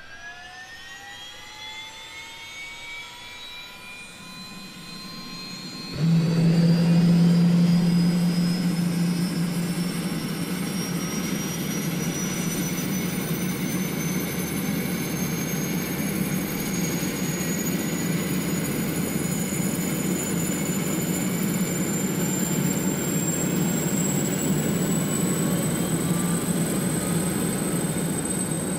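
DJI Phantom 4 Pro quadcopter's motors spinning up with a steeply rising whine. About six seconds in the propeller buzz turns suddenly much louder as the drone lifts off. A steady drone with a whine that creeps slowly higher follows.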